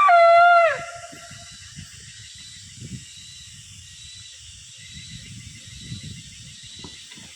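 A loud, whistle-like animal call that glides downward in pitch in steps, cutting off under a second in, then low rustling noise with a faint steady high tone.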